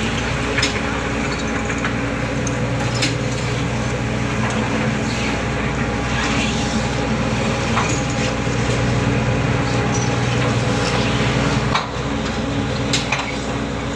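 Ship machinery running with a steady, loud drone, with scattered sharp knocks over it.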